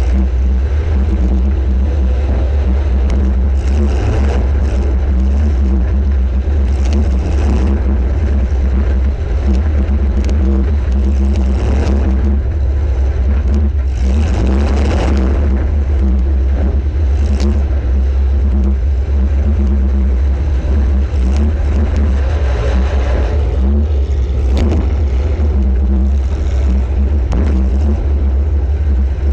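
Demolition derby compact car's engine running hard, close to the microphone, with a heavy steady rumble. Sharp knocks and crunches of impacts break in several times.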